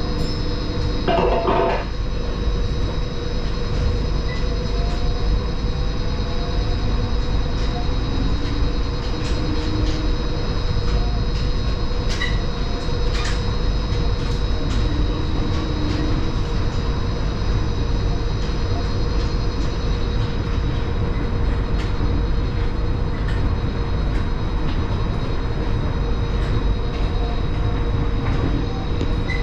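Dubai Palm monorail car running, heard from inside the cabin: a steady low rumble with a constant hum and a thin high whine. There is a short burst of louder noise about a second in.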